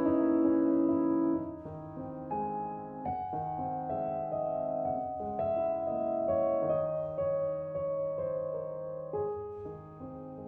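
Background music: slow piano, soft held notes and chords that change every second or so, quieter after the first second and a half.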